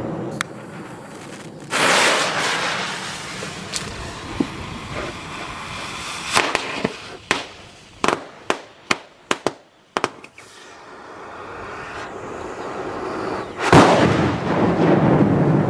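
Large firecrackers exploding: a loud bang about two seconds in with a long echoing tail, then a quick string of about eight sharp cracks over four seconds, and another loud bang with a long echoing tail near the end.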